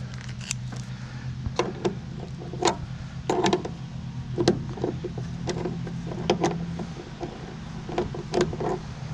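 Irregular clicks and knocks of scrap parts being handled during a teardown, over a low steady hum.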